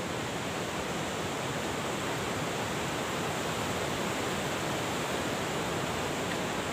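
Steady, even rushing of a flooded river running below a high stone bridge.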